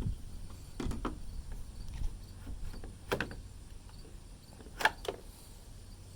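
Pliers gripping and working a stubborn retaining clip loose: a few sharp clicks and snaps, a pair close together near the end, over low handling rustle.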